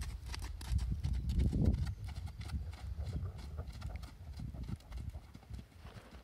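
Horse cantering on sand footing: muffled hoofbeats thudding in a repeating rhythm.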